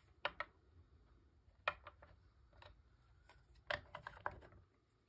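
Light, scattered clicks and taps of small plastic craft supplies, such as an ink pad and stamp, being handled and set down on a desk cutting mat. There are about half a dozen sharp taps at uneven intervals.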